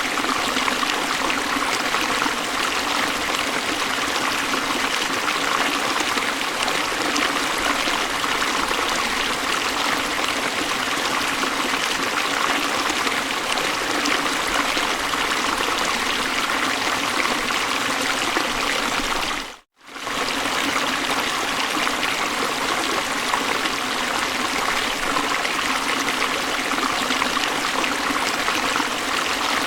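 Steady rushing of river water over falls, with an even, continuous sound. About two-thirds of the way through it dips out abruptly to silence for a split second, then comes straight back.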